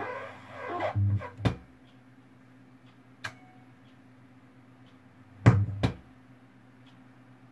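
Speakers driven by an Auna AMP-7100 amplifier: music stops about a second in, leaving a steady low hum broken by loud sharp pops, two near the start and two about five and a half seconds in, with a fainter click between. This is the fault noise that the new amplifier puts out on all speakers and any input after a few minutes.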